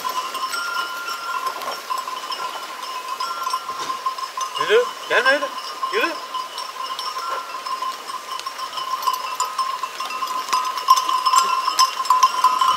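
A flock of sheep on the move with bells on the animals clinking and ringing steadily, and three or four sheep bleats about five seconds in.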